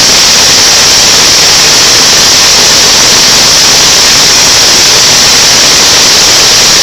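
High-pressure blower of a plastic-regrind drying machine running: a loud, steady rush of air with a strong high hiss.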